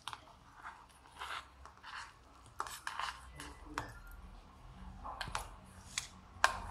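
A steel knife blade scraping and tapping against a stainless steel tin while cutting and prying loose a square of steamed kothimbir vadi: scattered short scrapes and sharp clicks, the loudest click near the end.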